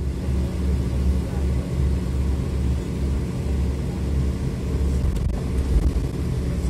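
Tour coach driving, heard from inside the passenger cabin: a steady low rumble of engine and road noise.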